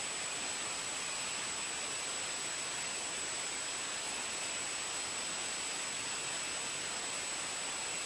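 Steady hiss with a thin, constant high-pitched whine above it, unchanging throughout.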